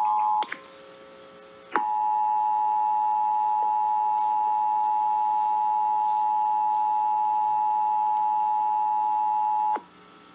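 Emergency Alert System two-tone attention signal (853 and 960 Hz together), a steady, loud tone held for about eight seconds that cuts off sharply near the end, announcing a required monthly test. Another burst of the same tone stops about half a second in, with a click and a short gap of faint hum before it starts again.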